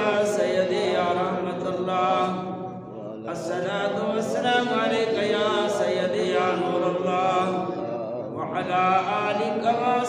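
A man's voice chanting devotional verse in long, melodic, held phrases, with short breaks about three seconds in and again near eight and a half seconds.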